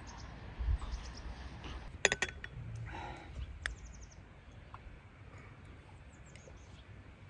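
Teaspoons and small tea glasses clinking: two bright ringing clinks of metal on glass, one about two seconds in and another just before the middle, over a quiet low background.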